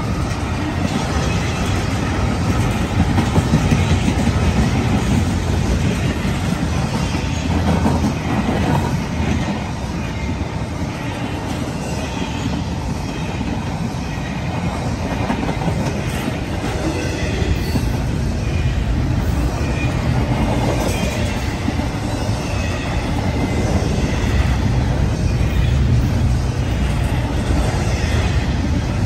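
Double-stack intermodal cars of a long Norfolk Southern freight train rolling past: a steady rumble and rattle of steel wheels on the rails.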